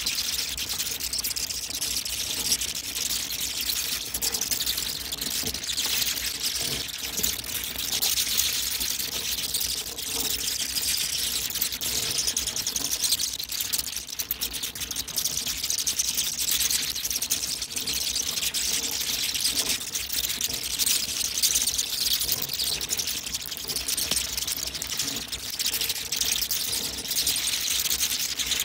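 A colony of bats screeching all at once as they leave the roost: a dense, continuous, high-pitched chatter of countless overlapping squeaks and clicks.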